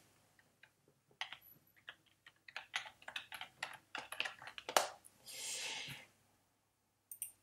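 Irregular clicking and tapping on a computer keyboard, several taps a second for a few seconds, then a short soft rush of noise about five seconds in and a couple more clicks near the end.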